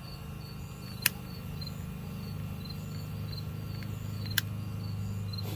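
Inkbird Plus smoking gun's small fan motor running with a steady low hum while it pushes smoke through its hose. Crickets chirp in a regular pulse behind it, and there are two sharp clicks, about a second in and near the end.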